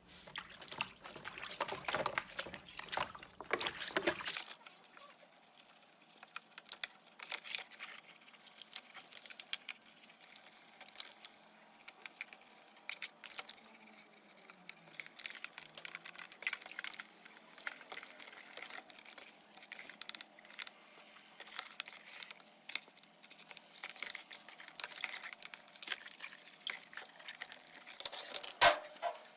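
Liquid being dabbed and brushed onto laptop parts: a string of small wet scratches and clicks, busiest in the first few seconds, with one sharper click near the end.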